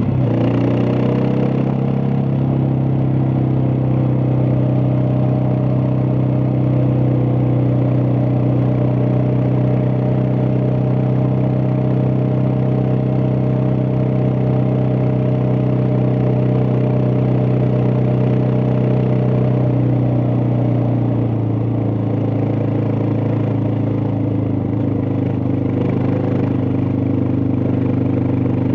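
Suzuki DR650's single-cylinder four-stroke engine running steadily while riding. The engine pitch dips slightly right at the start and again for a few seconds about two-thirds of the way through, then picks back up.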